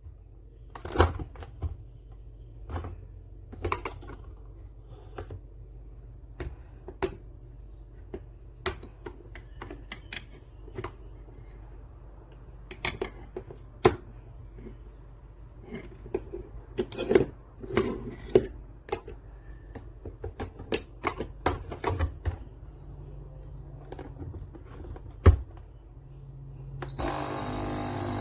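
Irregular clicks and knocks as the HiBREW capsule coffee machine and its parts are handled; about a second before the end a steady buzzing hum starts, the machine's pump beginning to run.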